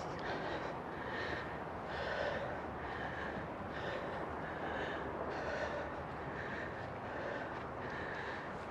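A person breathing hard, out of breath from a steep uphill climb: heavy, regular breaths in and out, close to the microphone.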